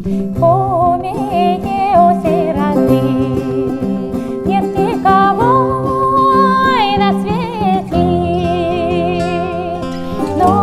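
A woman singing a melody with vibrato, holding one long note in the middle, over plucked bouzouki and acoustic guitar accompaniment.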